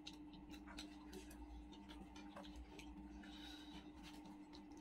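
Faint sounds of eating by hand: scattered small, irregular clicks and taps of fingers and food on plates, over a steady low hum.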